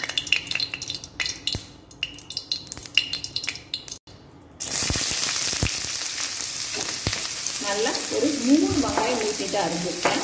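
Oil heating in a kadai gives scattered pops and crackles. After a brief cut, a steady loud sizzle follows as sliced onions fry in the hot oil.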